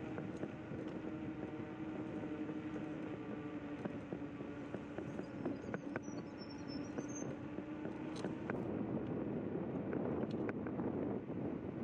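Electric scooter's hub motor whining at a steady pitch while riding over a dirt track, with tyre rumble and scattered rattling clicks from the bumpy surface. The whine fades near the end as the rumble grows louder.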